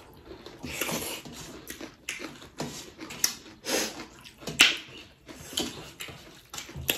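Close-miked eating by hand: wet chewing and mouth smacks, with fingers working rice and pork on brass plates, heard as an irregular string of short clicks and squelches.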